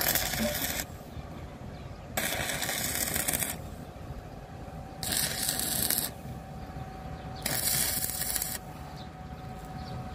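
Electric arc welding crackling in four short bursts of about a second each, with gaps between them: tack welds being laid on a worn bolt of a baler's hydraulic oil reservoir that had come loose. A faint steady whine runs underneath.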